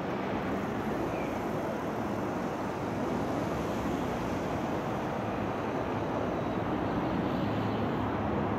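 Steady city background noise: a continuous rush of distant traffic, rising slightly about three seconds in.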